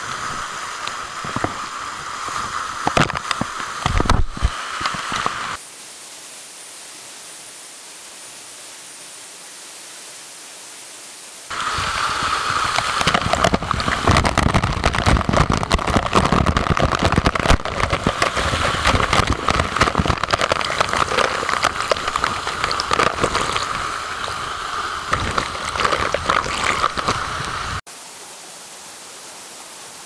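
Waterfall water pouring and splashing onto rocks close to the microphone, a dense crackling rush. It cuts in and out abruptly: about five seconds of splashing, a steadier, quieter hiss, then a longer, louder stretch of splashing from a little before halfway that stops suddenly just before the end.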